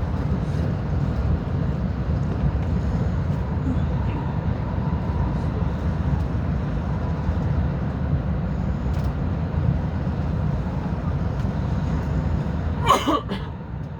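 Steady low rumble of a rapid commuter train running along the line, heard from inside the carriage. About a second before the end, a short sharp burst cuts through, louder than the running noise.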